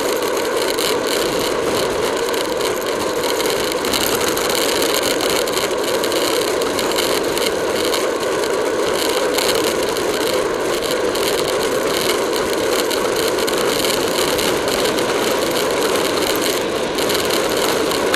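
Steady rush of wind on the microphone and tyre noise from a road bicycle racing at about 30 mph, with a fine rattle of small clicks throughout.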